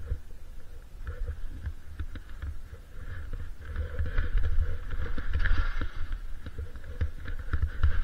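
Skis sliding and turning through soft snow, a hiss that swells in the middle, with a steady low rumble of wind buffeting the body-worn camera's microphone.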